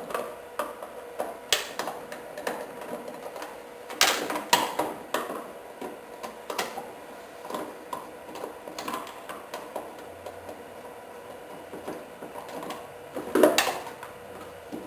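Irregular clicking and rattling of screws being taken out of a plastic ride-on toy's foot-pedal housing, with louder clatters about four seconds in and again near the end.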